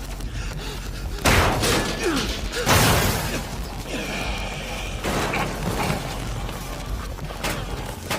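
Two heavy crashing impacts from an anime fight scene, about a second and a half apart, followed by lighter knocks, over tense background music.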